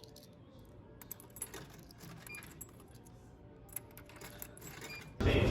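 Faint scattered light clicks and small metallic jingles over quiet room tone. A much louder, busier sound cuts in abruptly near the end.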